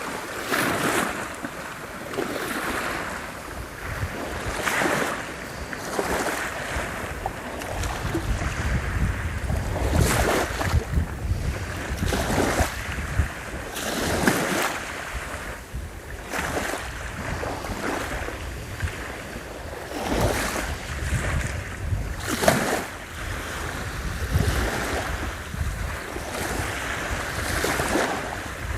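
Black Sea surf breaking on the shore, waves washing in one after another in surges every couple of seconds. Strong wind buffets the microphone with a low rumble.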